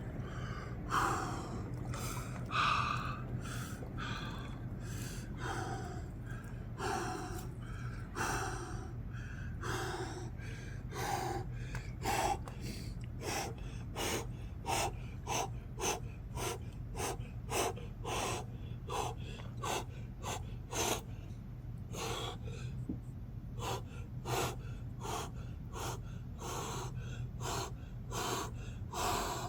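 A man's sharp, rapid gasping breaths from cold shock while immersed in icy lake water. The breaths start at about one a second and quicken to nearly two a second.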